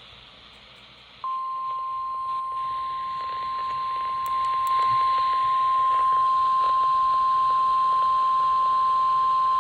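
Weather-radio warning alarm tone: one steady tone near 1 kHz, the 1050 Hz alert tone, starting about a second in over radio hiss and holding on. It signals that a new warning message is about to be broadcast.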